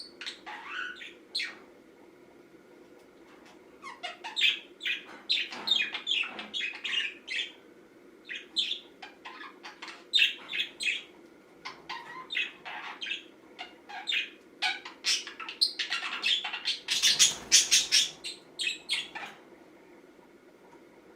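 Budgerigar chirping and warbling in rapid bursts of short notes, with a brief pause about two seconds in, a dense, harsher stretch of chatter near the end, then stopping. A faint steady hum lies underneath.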